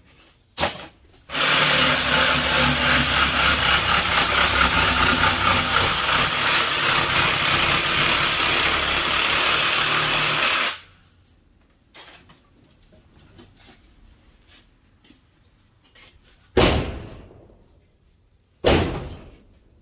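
Power tool cutting through a copper-aluminum radiator coil for about nine seconds, then stopping. Two loud knocks follow, each ringing briefly.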